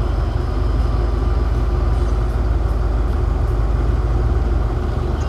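Classic car's engine running, a steady deep rumble with a fine even pulse, heard from inside the cabin.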